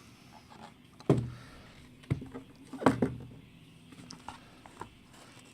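Handling noise on a table: a few knocks and thumps as items and packaging are moved and set down, the loudest about a second in and just before three seconds, with lighter clicks between.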